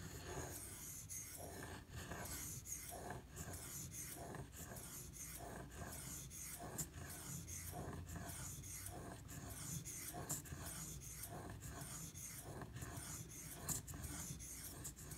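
Carbon-steel pocket-knife blade being stroked back and forth on a Shapton Glass 1000-grit water stone: a soft, rhythmic scraping that repeats steadily, stroke after stroke. The strokes are raising a burr along the edge.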